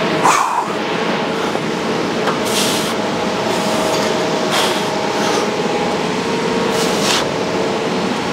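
Steady rushing ventilation noise, with short sharp hissing breaths about every two seconds.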